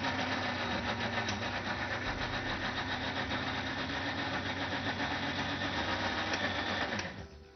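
Electric mixer grinder motor running steadily with its steel jar, grinding a cooked gravy base into a purée. It shuts off about seven seconds in.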